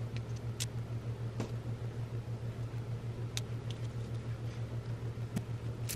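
A steady low hum that pulses evenly, with a few light, scattered clicks of plastic clothes hangers being handled.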